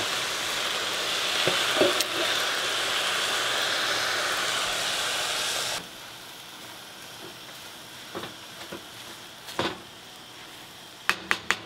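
Seasoned meat stock poured into a hot pot of greens, with a steady hissing sizzle that cuts off suddenly about six seconds in. It is followed by a few light knocks and a quick run of clicks near the end.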